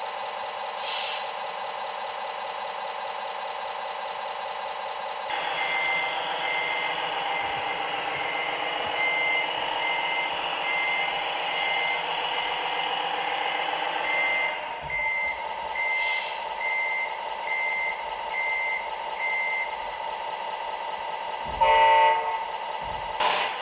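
A large vehicle's engine running steadily, with a high reversing-style beeper sounding at an even pace of about one and a half beeps a second through the middle. Near the end comes a short, loud, pitched blast like a horn.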